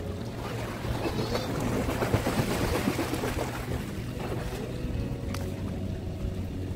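Water splashing as a person swims across a pool. It builds about half a second in, is strongest around two to three seconds, and dies away by about four seconds. A brief sharp click comes about five seconds in.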